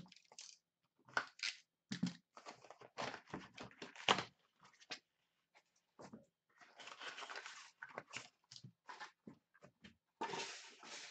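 An Upper Deck Synergy hockey card box being opened by hand: its cardboard sleeve and foil-wrapped packs rustle, scrape and tap as the tray of packs is slid out and the packs are set down. A run of short rustles and taps, with longer rustling stretches about two thirds through and near the end.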